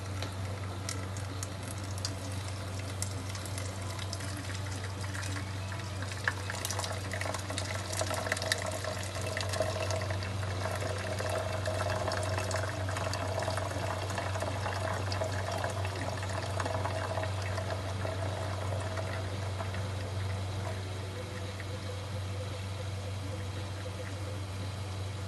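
Coffee maker brewing: water gurgling and sputtering through it over a steady low hum. There are bursts of crackling pops from about six to ten seconds in.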